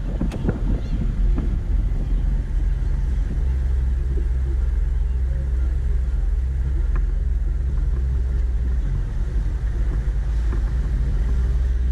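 Four-wheel-drive vehicle driving across beach sand: a steady low engine and drivetrain rumble picked up by a camera on its hood.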